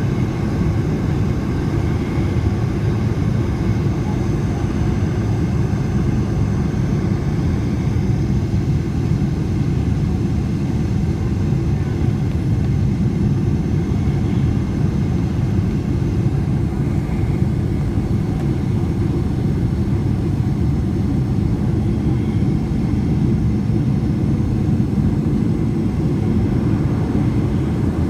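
Boeing 747 heard from inside the cabin: a steady low rumble of engines and airflow that holds level, with no sudden change.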